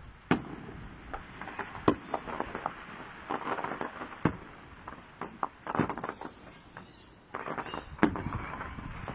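Fireworks display: aerial shells bursting with several sharp bangs a second or two apart, the loudest about two seconds in, with bursts of crackling in between.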